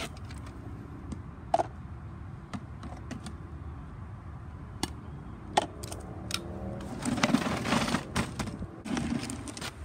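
Scattered plastic clicks and clacks as a reacher-grabber grips a miniature trash bin and tips it over a plastic wastebasket. A busier clatter of taps comes in the last few seconds.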